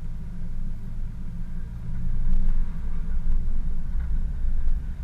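Off-road vehicle driving on a dirt and gravel track, heard through a bonnet-mounted camera: a steady low rumble of engine and tyres that grows louder about two seconds in.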